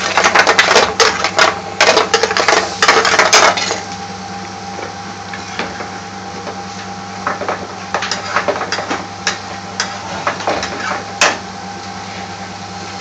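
Metal frying pan shaken and tossed on a gas hob's grate, clattering loudly for the first three and a half seconds. Then a metal spoon scrapes and taps the pan now and then over a steady background hum, with one sharper knock near the end.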